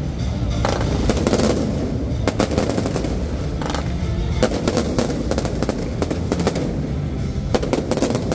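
Fireworks going off overhead in a rapid, irregular string of bangs and crackling reports.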